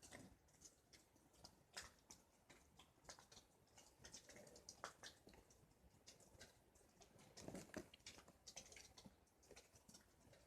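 Near silence with faint, irregular small clicks and handling noises from hands working a butane lighter held in a fist.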